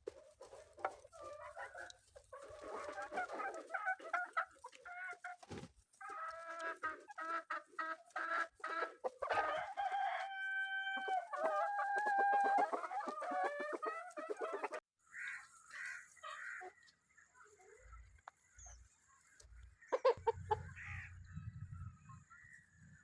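Chickens clucking and calling, thick and continuous for about the first fifteen seconds, with a long held crow-like call about ten seconds in. The sound then cuts abruptly to sparser calls, a few low knocks and a low rumble near the end.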